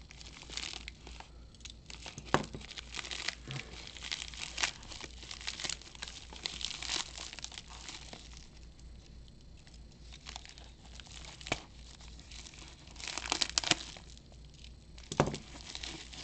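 Plastic bubble mailer crinkling and rustling as it is opened and pulled apart by hand, with scattered sharp crackles. The rustling gets louder for a few seconds near the end.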